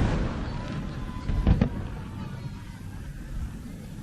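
Aerial firework shells bursting: a heavy boom dies away at the start, then two sharp bangs come close together about a second and a half in. A faint whistle is heard between them.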